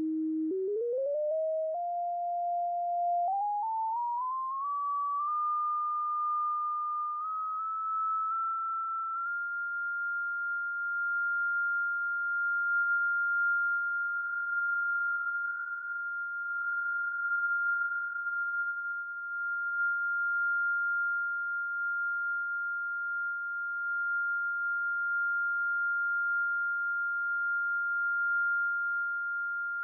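A single pure tone from a software-defined radio demodulating a steady carrier in double-sideband mode. Its pitch climbs in steps and slides for the first nine seconds or so as the tuning is moved off the carrier, then holds one high note, wavering briefly in the middle.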